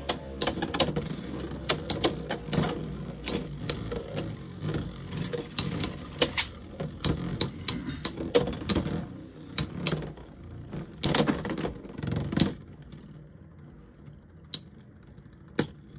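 Two Beyblade X spinning tops, Wyvern Gale and Hell Scythe, spinning in a clear plastic stadium, with rapid irregular clacks of plastic and metal as they strike each other and the stadium. About twelve seconds in the clacking thins to a few sparse clicks as the tops slow toward a stamina finish.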